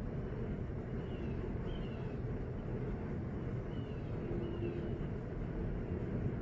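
Steady low background rumble, with faint short falling chirps, usually in pairs, recurring every second or two.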